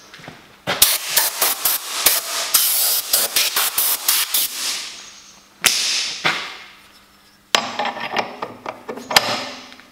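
Compressed-air blow gun blasting metal swarf off a milling machine vise and table. It fires a rapid string of short bursts for about four seconds, then two longer blasts that fade away.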